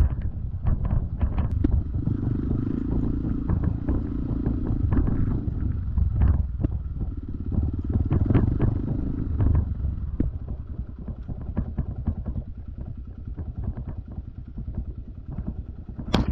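Dirt bike engine running while the bike is ridden along a rough grassy trail. The throttle opens in surges, then the engine drops to a lower, quieter note after about ten seconds. Frequent knocks and clatter from the bike run throughout, with a few sharp knocks near the end.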